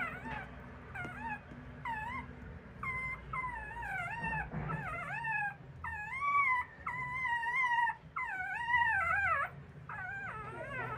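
Brazilian terrier whimpering: a long run of high-pitched whines that slide up and down in pitch. They start short and sparse about a second in, grow longer and louder through the middle, then tail off into a few short ones near the end.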